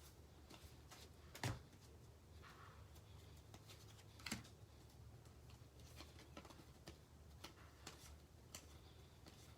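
Faint clicks and slides of baseball trading cards being handled and flipped through one by one, with two louder sharp knocks, one about a second and a half in and one a little after four seconds.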